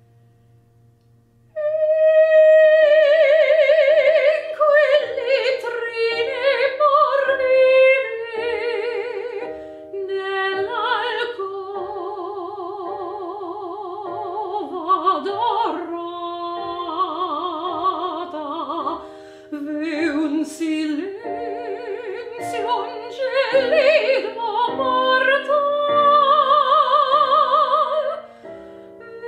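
Operatic soprano singing a classical song with wide vibrato over piano accompaniment; after a faint, dying piano chord, the voice enters about a second and a half in and carries on in long sung phrases.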